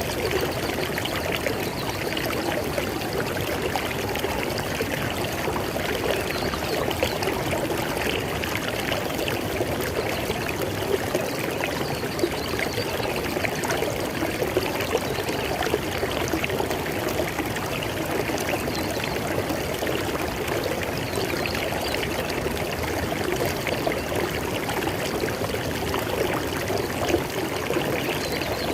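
River water flowing over rocks: a steady, continuous rush and splash of running water.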